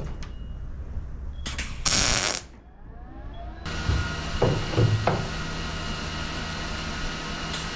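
Welder laying tack welds on a steel truck hood: two short crackling bursts, then a steadier hiss with a faint electrical hum and a few low knocks.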